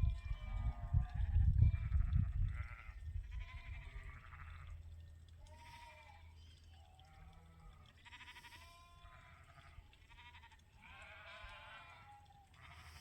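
A flock of Suffolk and Poll Dorset sheep bleating, with many calls overlapping one another. A heavy low rumble runs through the first two or three seconds and then fades.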